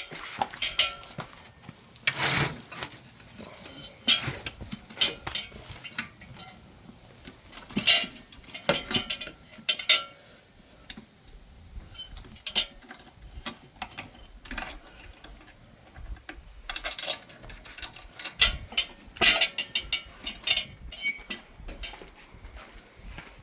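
Scattered metallic clinks, clanks and knocks of tools and bike parts being handled as the e-bike's wheel is fitted back on, with a louder clatter about two seconds in.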